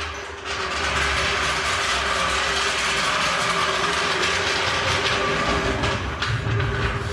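Car jack being moved into place under the car, its wheels and metal parts making a steady rattling rumble.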